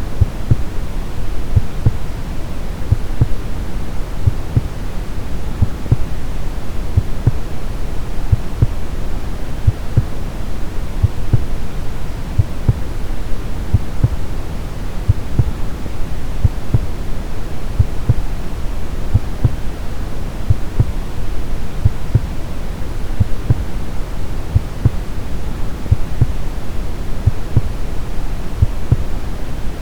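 Brown noise, a steady low rushing hiss, with a heartbeat sound beating evenly and deep over it.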